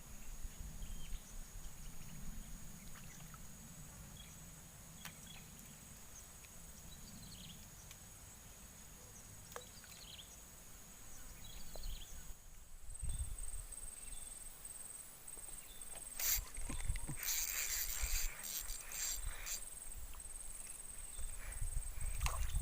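Outdoor ambience: a steady high-pitched insect drone with a low wind rumble on the microphone. Scattered small clicks run through it, with a spell of louder rustling and clicking handling noise a little past the middle.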